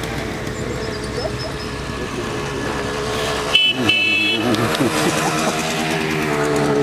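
Small motorbike engines running as the bikes approach, with a horn tooting twice about halfway through.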